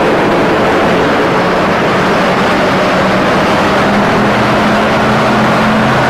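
Steady vehicle engine and road noise, with a low engine hum that rises slightly in pitch about a second in.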